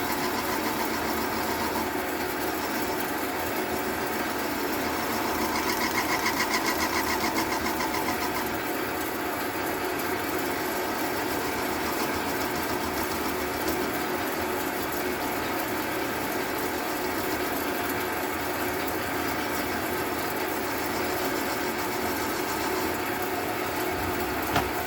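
Small cue-repair lathe motor running steadily, with a louder pulsing stretch about five to eight seconds in.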